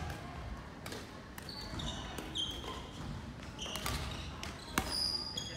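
Badminton play on an indoor court: several sharp racket-on-shuttlecock hits and footfalls, with short high-pitched squeaks of court shoes on the sports-hall floor.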